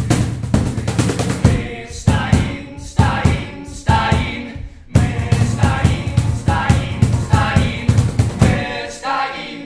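Several men singing together in a group, over acoustic guitar and a drum beat: a folk song.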